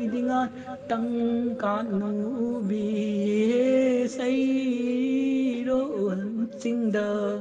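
A single voice chanting a slow sung melody, with long held notes that waver.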